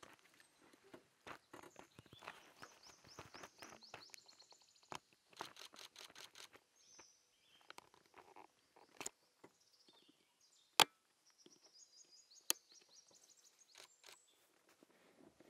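A bird sings two runs of short, quick, repeated high notes over scattered soft clicks and rustles. Two sharp, louder clicks come about two-thirds of the way through.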